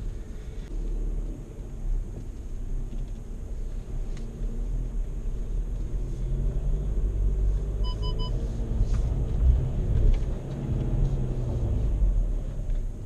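Drivetrain of a 2016 VW Amarok 2.0 BiTDI four-cylinder diesel with automatic gearbox, driving off-road with the engine pitch rising and falling. Three short electronic beeps come about eight seconds in.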